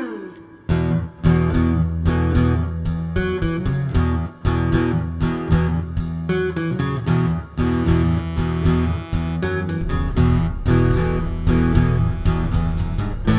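Intro background music led by plucked and strummed guitar over a steady bass line, with regular plucked notes.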